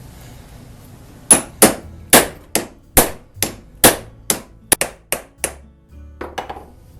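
Hammer blows driving a hollow hole punch through several clamped layers of denim on a punching stand: about a dozen sharp strikes, two to three a second, then a few lighter taps near the end.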